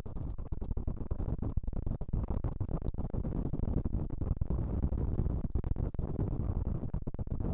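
Wind rumbling over a helmet-mounted camera's microphone, mixed with the rattle and tyre noise of a mountain bike rolling fast over loose gravel and grass, with many small clicks and knocks.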